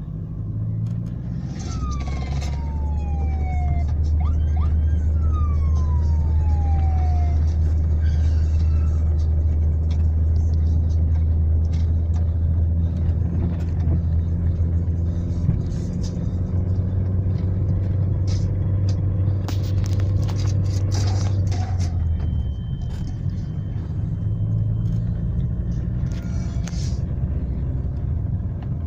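Car driving, a steady low engine and road rumble that eases off about 22 seconds in. A few seconds in, two falling whistled tones sound over it.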